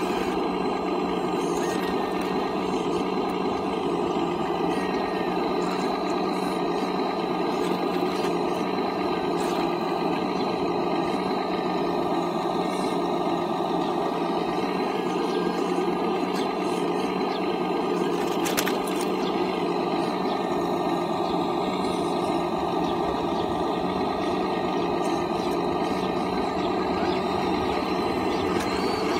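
Radio-controlled hydraulic excavator running steadily: a constant hum of its hydraulic drive with a thin high whine over it. One brief click a little past the middle.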